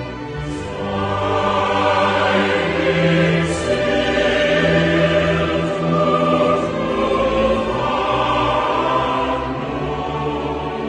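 Background choral music: a choir singing long held notes over instrumental backing, swelling about two seconds in.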